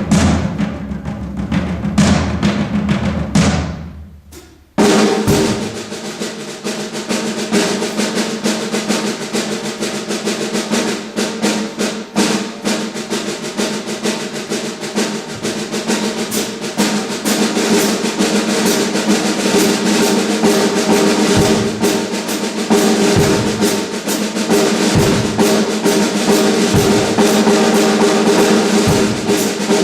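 Live funk trio of electric guitar, electric bass and drum kit playing. A few heavy accented hits, a sudden stop about four seconds in, then the band comes straight back in with busy snare drumming over held chords and occasional bass-drum thumps.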